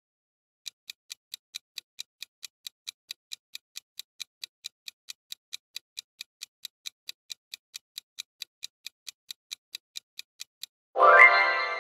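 Countdown-timer ticking sound effect: a steady clock-like tick, about four to five ticks a second, for about ten seconds. The ticking stops and a loud bright chime rings near the end and fades, marking time up.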